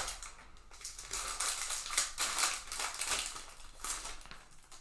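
Trading-card pack wrapper being torn open and crinkled: a dense, irregular crackling rustle that is loudest in the middle and eases off near the end.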